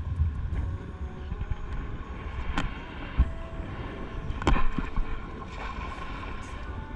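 Wind buffeting the microphone with a steady outdoor rush, broken by a few sharp knocks, the loudest about four and a half seconds in.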